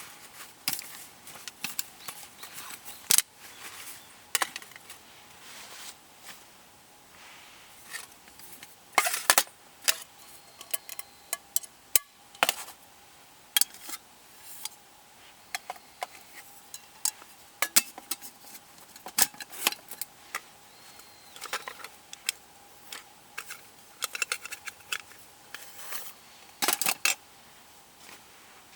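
Irregular clicks, knocks and light clatter of hard objects being handled, some sharp and loud, others faint.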